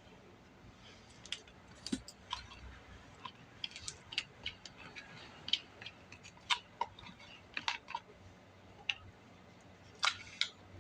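Irregular light clicks and taps from handling a cordless pole saw's cover, chain and bar with a flathead screwdriver while loosening the chain.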